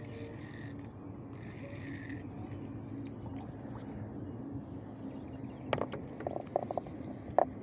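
Spinning reel being wound in over a steady low hum, then a quick run of sharp clicks and knocks near the end as a small fish is lifted out on the line.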